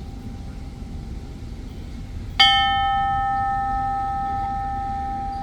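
A bell struck once about halfway through, then ringing on with several overtones and slowly fading.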